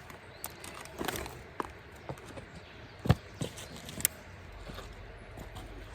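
Irregular clicks and knocks of handling while a fish is landed, with two louder knocks about three and four seconds in.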